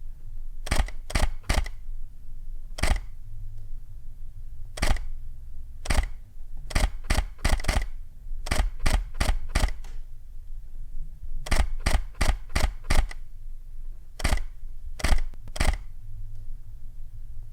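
Camera shutter clicking again and again, some shots single and some in quick runs of several clicks about three a second.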